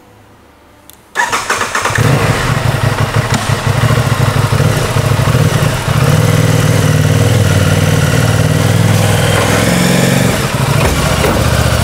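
A sport motorcycle's engine is started about a second in, catches at once and then runs steadily. Near the end the revs rise slightly as the bike is ridden up a loading ramp under power.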